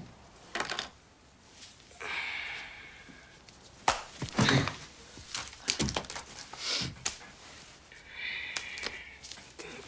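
Handling and movement noises in a small room: a run of sharp knocks and clicks in the middle, with soft hissing patches before and near the end.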